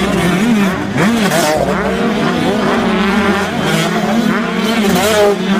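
Motocross dirt bike engines running and revving, the pitch rising and falling with the throttle.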